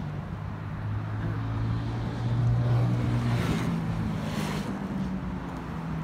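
A boat engine running, a steady low hum that steps up in pitch about halfway through. Two brief hissing rushes come near the middle.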